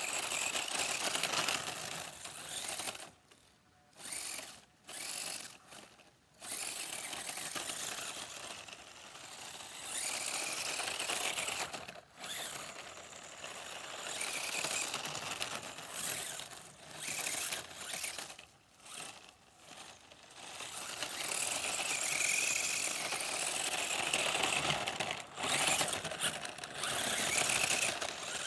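2WD radio-controlled car driving, its motor whining in bursts of throttle with short pauses between.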